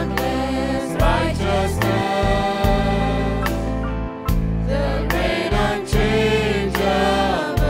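Mixed congregational choir of men, women and children singing a hymn, accompanied by keyboard and guitar, with a regular percussive beat striking a little under once a second.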